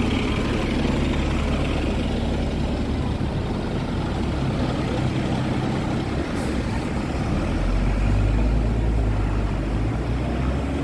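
Heavy road traffic with large vehicle engines running. The low rumble swells about eight seconds in, and there is a brief hiss about six seconds in.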